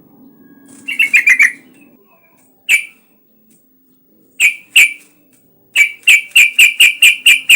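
Yellow-vented bulbul (trucukan) calling in short, sharp, loud notes. There is a quick burst of about five notes about a second in, then single and paired notes, then a fast, even run of notes, about four to five a second, near the end.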